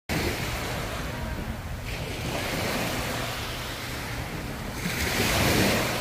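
Small waves washing onto a sandy beach, a steady hiss that swells about two seconds in and again, louder, near the end, with a low wind rumble on the microphone.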